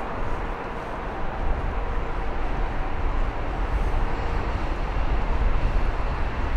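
Steady city-street background noise: a low rumble of traffic with a faint steady hum.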